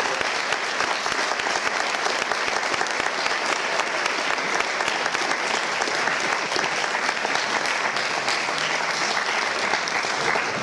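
An audience applauding: a steady, dense clapping of many hands.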